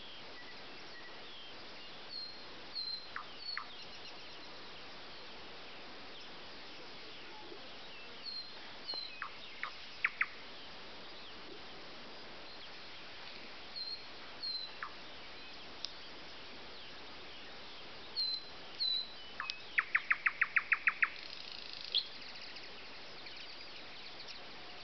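Songbirds singing: short high downslurred notes, mostly in pairs, every few seconds. About four-fifths of the way through comes a quick run of about eight sharp, evenly spaced notes.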